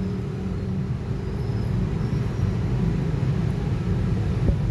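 Low, uneven background rumble, like a running motor or passing traffic, with a faint click near the end.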